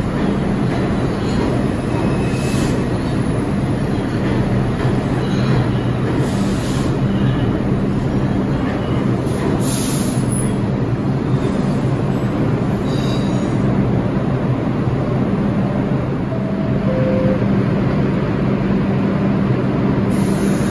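New York City subway trains in an underground station: a steady train noise with a constant low hum, and short high-pitched wheel squeals a few times.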